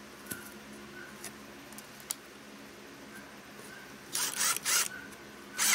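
Cordless drill running into a poplar board in short rasping bursts: two quick bursts about four seconds in, then a longer one near the end.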